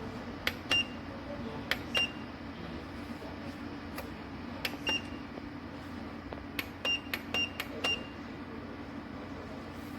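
Ceramic fan heater running with a steady fan hum, while its controls are operated: six short high beeps, each just after a click, as buttons are pressed and the heater acknowledges each one, three of them in quick succession near the end.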